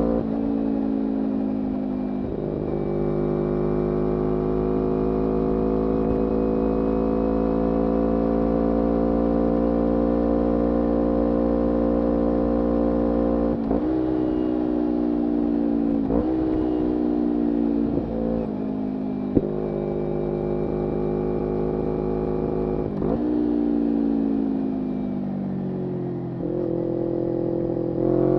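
A 2011 Kawasaki Ninja 250R's parallel-twin engine running under way through a full Graves racing exhaust. The revs climb slowly at first, then fall in several steps with short sharp breaks, like a run of downshifts while slowing. They settle low, then rise quickly again near the end as the bike pulls away.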